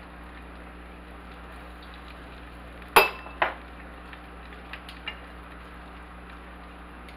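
A metal spoon clinks sharply twice against a ceramic bowl about three seconds in, followed by a few lighter taps, over the steady sizzle of hush puppies frying in a pot of oil.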